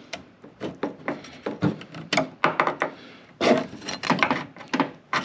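Irregular knocks, scrapes and rattles of hands and tools working at car body parts, with no power tool running.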